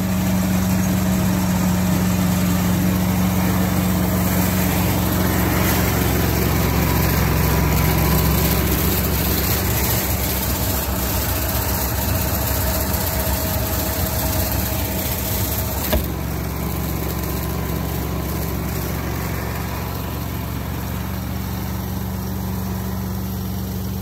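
Mitsubishi rice combine harvester running steadily at work, a low engine drone. One short knock comes about two-thirds of the way through, and the sound eases slightly over the last part.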